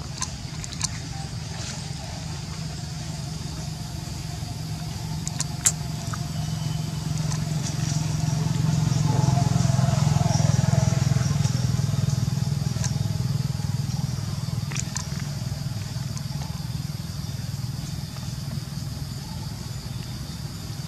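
A motor vehicle's engine hum, swelling to its loudest about halfway through and then fading, as a vehicle passing by would. A few sharp clicks sound in the first six seconds.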